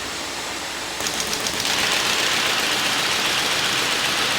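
Combination buckle paper folding machine running with a steady mechanical rushing hiss; about a second in it gets louder, with a few quick clicks, and then runs on evenly.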